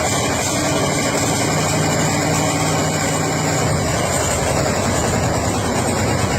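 Vintage engine running steadily just after being started.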